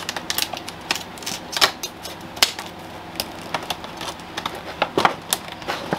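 Stiff plastic clamshell packaging crackling and snapping as it is cut open and handled with scissors: irregular sharp clicks, a few louder snaps in between.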